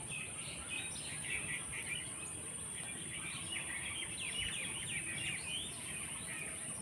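Many small birds chirping in quick runs of short notes, over a steady high-pitched insect drone.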